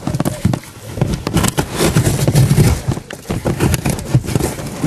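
Cardboard being torn, crumpled and scraped by a German Shepherd's teeth and paws close to the microphone: a dense run of irregular crackles and rips.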